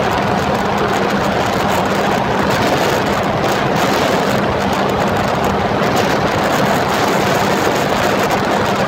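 Jet ski engine running steadily under way: a constant hum over a loud, even hiss.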